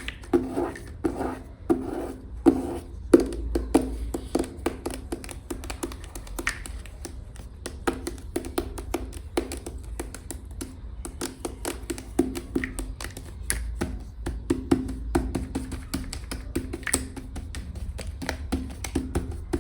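Long fingernails tapping rapidly on clay packaging or a container, several taps a second, each with a short hollow ring, mixed with light scratching.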